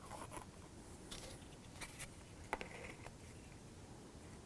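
Faint handling noises of small laser-cut kit pieces: a few light, scattered clicks and scrapes.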